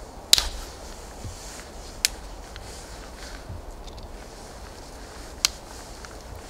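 Three sharp cracks of sticks being snapped by hand, the first the loudest, the others about two and five seconds in, with light rustling of twigs in between.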